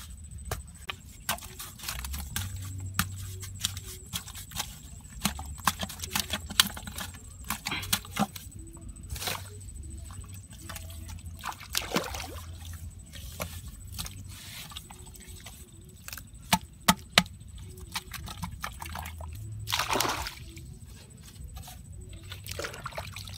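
Hand-digging a hole in wet, clayey mud: repeated knocks and scrapes of a wooden stick and fingers in the soil, with wet slopping of mud and water, and a longer scraping rush near the end as a plastic pipe is worked into the hole.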